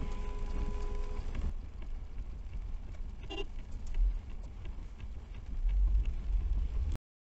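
Low rumble of a car driving on a wet road, heard from inside the car, with a held tone at two pitches during the first second and a brief higher sound about three seconds in. The sound cuts off abruptly near the end.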